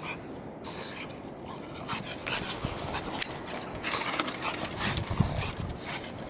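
Two pugs play-fighting: their breathing and dog noises mixed with scuffling, in irregular bursts that are loudest around four and five seconds in.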